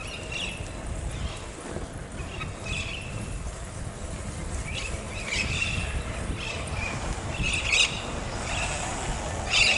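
Wind rumbling on the microphone while cycling, with about five short high chirps scattered through it.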